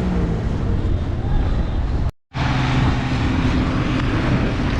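Road-side engine and traffic noise, steady and loud. It drops out completely for a moment about two seconds in, and after that a vehicle engine runs steadily.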